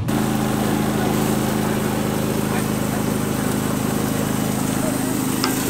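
A Predator portable generator's small engine running steadily at an even hum.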